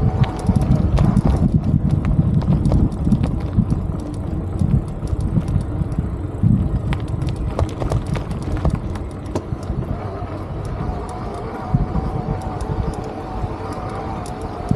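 Street noise heard on a ride through a city centre: a heavy low rumble of wind and road with many sharp rattling clicks, over a steady hum.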